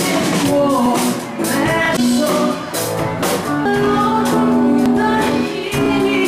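Live rock music: a young woman singing loudly into a microphone over electric guitar, with a steady beat.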